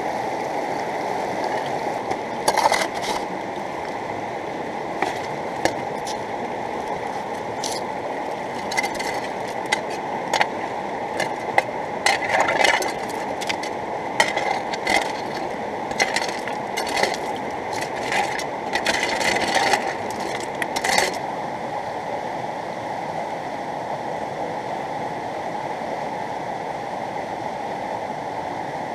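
A fast-flowing river rushes steadily, and over it a shovel scrapes into gravel and stones clatter onto the metal hopper of a small home-made highbanker, again and again from a couple of seconds in until about two-thirds of the way through.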